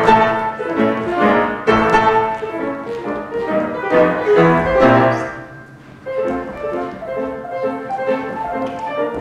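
Classical music led by piano, with some strings; a phrase dies away about five seconds in and a new, softer one begins about a second later.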